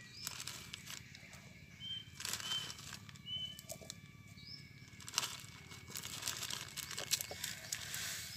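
Dry instant noodles being snapped apart by hand and pushed into a coconut, with the plastic noodle packet crinkling: a run of crisp crackles and rustles, busier in the second half. A bird chirps a few times in the background.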